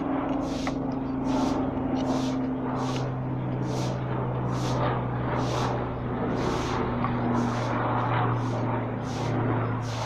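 Clear slime being worked by hand, a wet squishing that repeats about twice a second, over a steady low hum.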